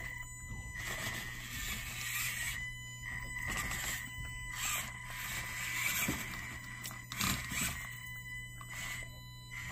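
Micro RC crawler's 50-turn motor and transmission whining as the truck crawls up stairs, stopping briefly several times. A couple of short knocks from the truck on the steps.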